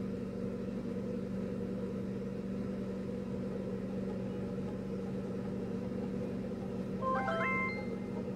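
A steady low droning hum, with a short run of high, chime-like notes about seven seconds in.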